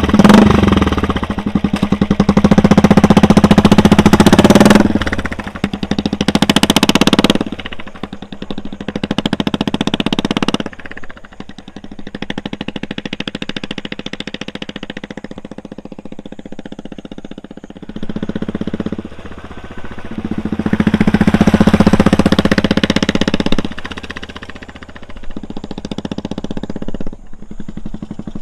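Royal Enfield Classic 350's single-cylinder engine running through a loud twin-pipe 'double barrel' aftermarket exhaust as the motorcycle rides past several times, swelling loud on each pass and falling away in between.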